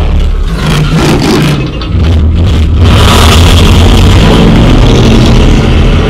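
Loud action-movie sound effects played through a Klipsch Dolby Atmos home-theater speaker system: a deep bass rumble, with a rushing hiss building over it about three seconds in.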